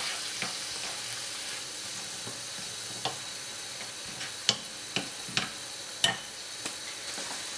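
Beans, cherry tomatoes and onion sizzling in a frying pan while being stirred with a wooden spatula. In the second half the spatula knocks sharply against the pan about six times.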